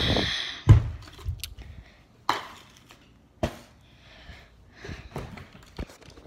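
A brushing scrape, then four sharp knocks spaced a second or more apart: kitchen things such as a cereal bowl being handled and set down.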